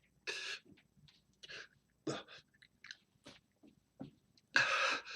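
A man coughing and blowing out sharply in a string of short, rough bursts, the biggest near the end: his throat is reacting to the burn of a sun-dried ghost chili pepper in his mouth.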